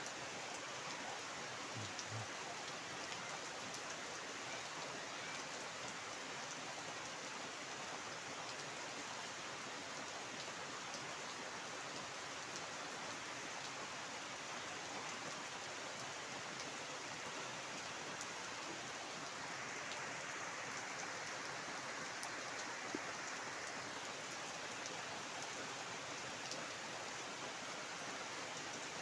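Steady heavy rain falling, the drops spattering onto standing floodwater and foliage in a continuous even hiss.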